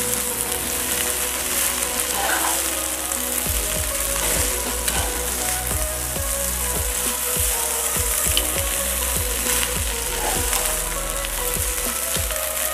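Rice and peas sizzling in hot oil in a pan while being stirred and turned with a perforated metal ladle. From a few seconds in, the ladle knocks and scrapes against the pan again and again, at an uneven pace.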